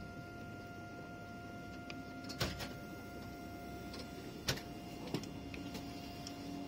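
Clicks and knocks from a TGV Réseau first-class seat's recline mechanism as the control in its armrest is worked: a pair about two and a half seconds in, then single ones around four and a half and five seconds. Underneath runs the train's steady cabin hum, with a faint steady whine.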